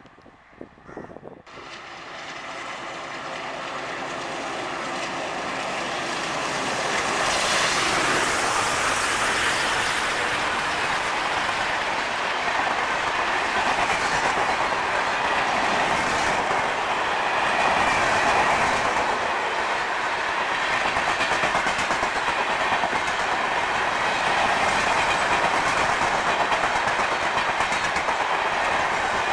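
Express passenger train hauled by a WDM-3A diesel locomotive, approaching and passing at speed. The sound builds for the first several seconds, then the coaches rush by with a steady, loud clickety-clack of wheels over the rail joints.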